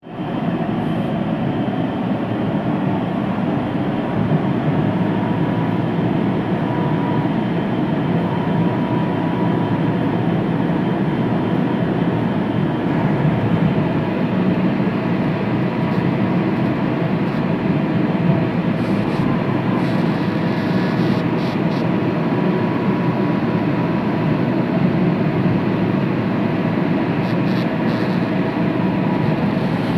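CNC 1325 oscillating-knife flatbed cutting machine running, a loud, steady mechanical noise with a faint high ticking around two-thirds of the way through and again near the end.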